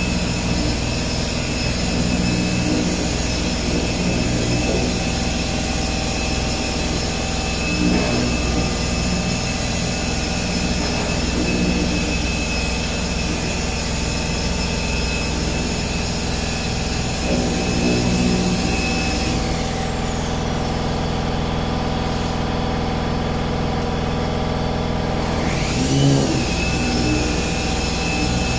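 Electric dual-action orbital car polisher (a Bigfoot) running steadily with a high whine, buffing compound into car paint. About two-thirds of the way through, its whine winds down, then it spins back up and settles again near the end.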